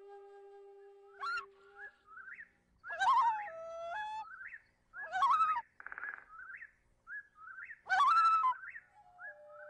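Background music: a held flute-like note that stops about two seconds in, then whistled bird-like calls with gliding pitch, short upward chirps between three louder calls spaced about two and a half seconds apart.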